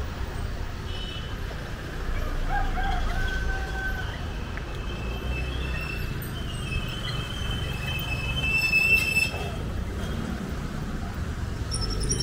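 Street traffic rumbling, with a long, high-pitched squeal that starts about halfway through and is loudest near the end.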